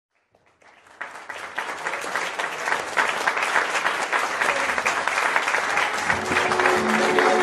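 Audience applause, fading in and growing louder, with many hands clapping. About six seconds in, tango music begins under the clapping.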